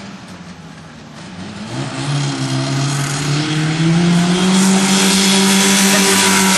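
1985 Polaris 440cc air-cooled two-stroke snowmobile engine in a go-kart, revving up under acceleration. Its pitch and loudness climb over about two seconds, then hold steady at high revs.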